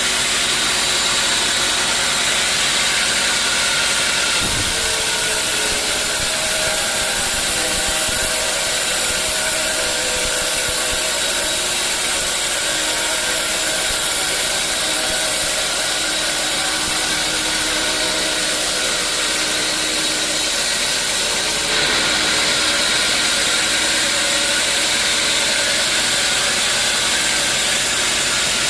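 Sawmill machinery running steadily while a saw cuts a teak log, a dense mechanical noise with faint humming tones. The sound changes abruptly about four seconds in and again near twenty-two seconds.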